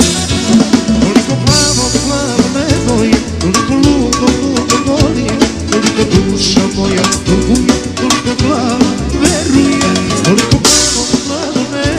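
Band music: a drum kit keeping a steady beat under a melody line, with cymbal crashes about a second and a half in and again near the end.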